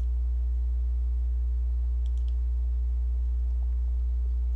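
Steady low electrical hum with evenly spaced overtones, typical of mains hum on a recording microphone. A couple of faint computer-mouse clicks come about two seconds in.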